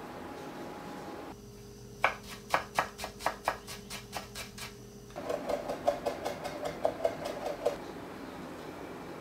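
Chef's knife mincing garlic and green onion on a wooden cutting board: a run of sharp chopping taps, about five a second, then a second, faster run of lighter taps.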